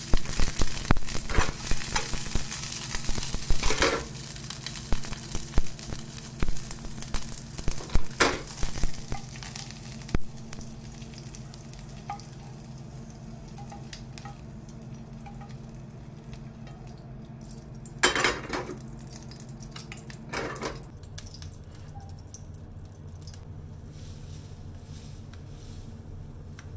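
Asparagus sizzling in oil in a non-stick frying pan, with metal tongs clicking and scraping against the pan as the spears are turned. The sizzle and clatter die down about ten seconds in, and two short noises come later.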